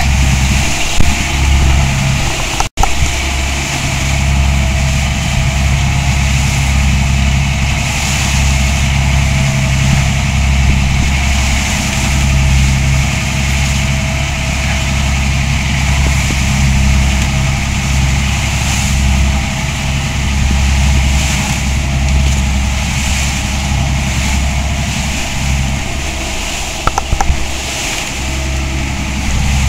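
Fishing boat's engine running steadily under way, a low drone with a hiss of wind and water over it. The sound breaks off for an instant about three seconds in.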